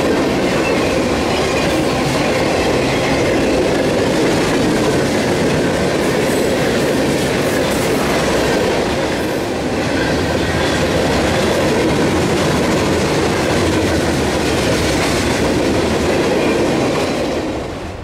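Freight train's boxcars and tank cars rolling past close by, a steady loud noise of steel wheels on the rails that drops away near the end.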